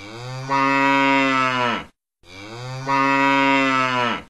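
Cow mooing twice: two long, steady calls of about two seconds each, each growing louder shortly after it starts.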